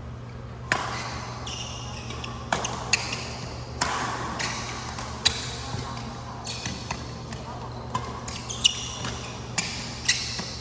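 Badminton rally: rackets strike the shuttlecock in sharp cracks a second or two apart, with short high squeaks of court shoes on the floor between hits, ringing in a large hall.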